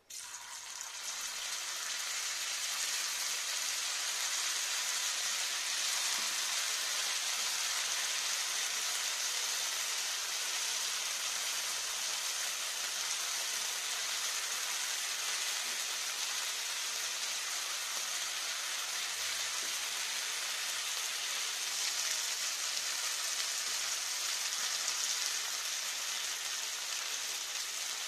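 Potato bites deep-frying in hot oil in a pan, making a steady sizzle that swells over the first couple of seconds as the pieces go in, then holds level.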